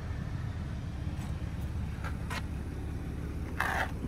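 Handling and movement noise of someone climbing out of a car's back seat: a steady low rumble with a few faint clicks, and a short scraping rustle near the end.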